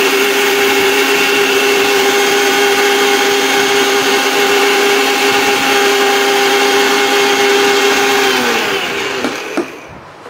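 Electric mixer grinder running at full speed, grinding cumin seeds in its small stainless-steel jar: a loud, steady motor whine. About eight seconds in it is switched off and winds down with a falling pitch, followed by a click.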